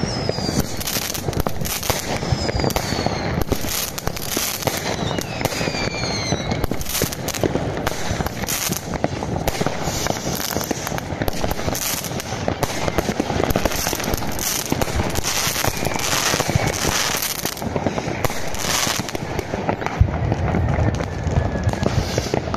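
Dense amateur New Year's Eve fireworks: a continuous barrage of bangs and crackling from many rockets and firecrackers going off at once, with several falling whistles in the first few seconds.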